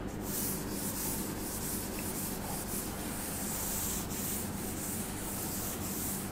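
A handheld duster rubbing chalk off a chalkboard, wiping in quick repeated strokes.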